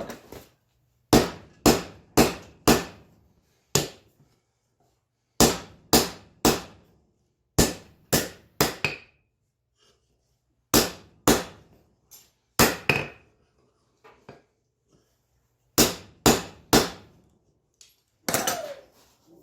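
Hammer blows on hot 5160 spring steel over an anvil, forging the sides of a chisel. The blows come in runs of three to five, about two a second, with short pauses between runs, each blow ringing briefly.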